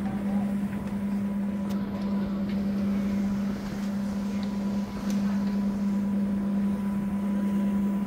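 Small car ferry running underway: a steady engine drone with a constant low hum and a fainter higher whine.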